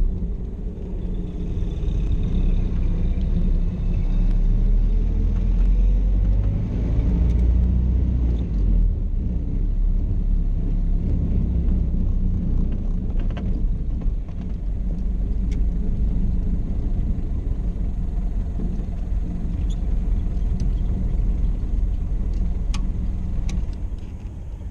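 1931 Ford Model A Victoria with a Burtz-built four-banger engine driving on the road: a steady low engine and road rumble, the engine note rising in pitch over the first several seconds as it pulls away. A few sharp clicks come in the second half.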